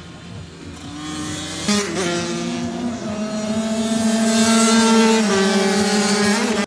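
Supermoto racing motorcycle engines running hard and revving through the gears, getting louder as they come past.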